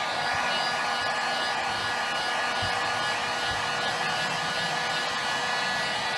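Electric heat gun running steadily, a hiss of blown air with a steady motor whine.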